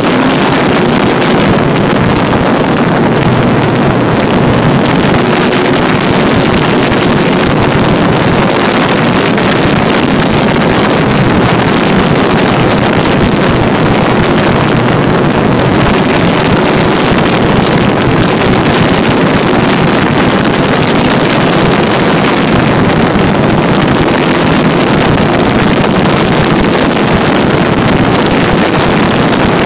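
Pitts S-2A R/C model airplane's motor and propeller under power, heard from a phone inside the model's cockpit: a really loud, steady rush of propeller wash and wind over the microphone with a faint motor hum, through takeoff and climb.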